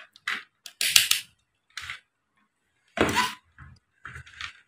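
A string of short clattering and rustling handling noises as the cables, multimeter and plastic back casing of an opened LCD monitor are moved by hand, about half a dozen knocks, the loudest about a second in and about three seconds in.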